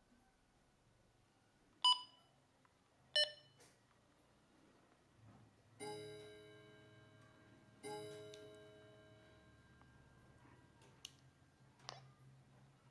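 Handheld FRS walkie-talkie beeping: two short, sharp electronic key beeps, then two longer pitched tones that each fade out over a couple of seconds, with a few faint clicks near the end.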